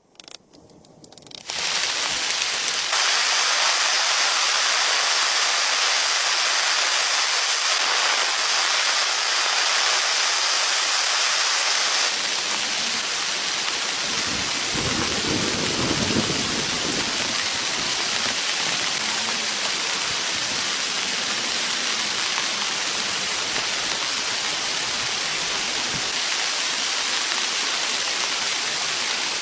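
Heavy, steady rain hiss that comes in abruptly about a second and a half in and cuts off sharply at the end, with a low roll of thunder about halfway through.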